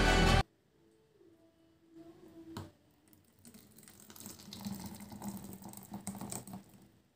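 Thick smoothie poured from a blender jar into a plastic bowl: a soft, wet pouring sound that builds from about three and a half seconds in, after a single knock shortly before. Background music cuts off at the very start.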